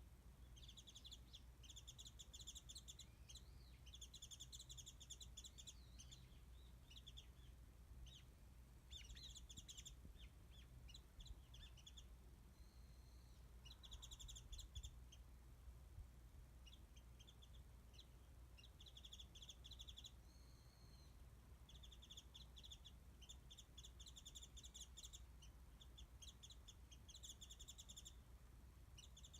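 Japanese white-eye singing: faint, fast, high twittering phrases of a second or two each, repeated over and over with short gaps, over a low steady hum.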